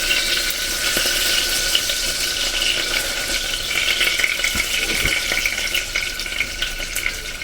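Skinless longganisa sausages frying in a pan: a steady sizzle with faint pops.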